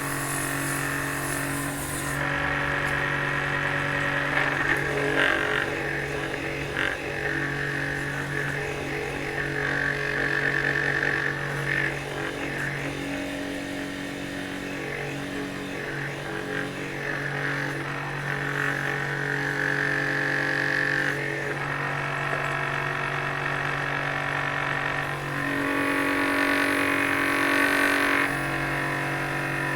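Benchtop drill press running steadily, used as a makeshift lathe to turn a wooden chisel handle; the sound shifts several times as a cutting tool works the spinning wood.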